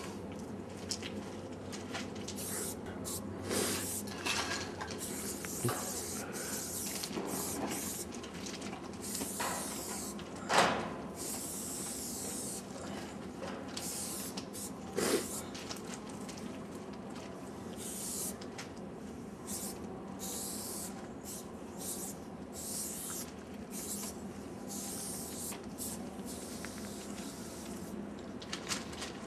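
Aerosol spray-paint can spraying in repeated hissing bursts, some short and some a second or two long, as paint is laid onto a freight car's side. Two sharp knocks stand out, about ten and fifteen seconds in, the first the loudest sound.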